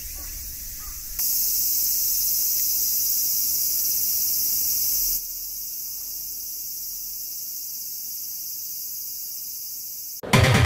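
Steady high-pitched drone of a summer cicada chorus, louder for a few seconds from about a second in, then softer. Music comes in suddenly just before the end.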